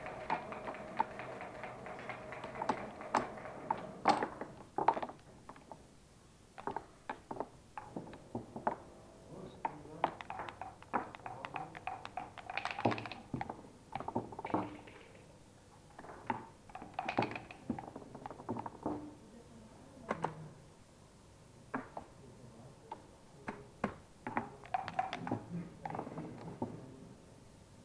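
Backgammon play: checkers and dice clicking and clacking on the board, a long irregular string of sharp clicks and knocks.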